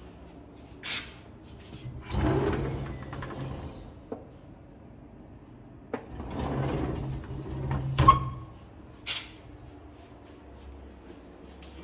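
A sliding window panel scraping along its track twice, the second slide ending in a sharp knock as it meets the frame.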